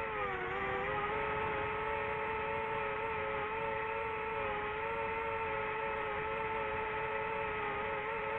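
DJI FPV drone's motors and propellers whining steadily in flight. The pitch dips briefly about half a second in, then holds level as the drone cruises.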